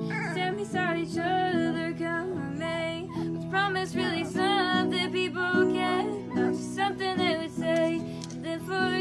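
A woman singing, accompanying herself on acoustic guitar, with long held sung notes over the guitar.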